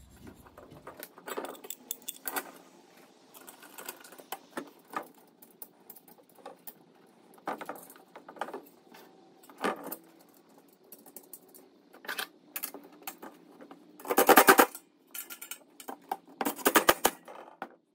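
Small metallic clinks and taps as galvanized steel greenhouse frame pieces and M5 screws are handled and fitted together. Near the end, a cordless power driver runs twice, briefly each time, driving the screws in.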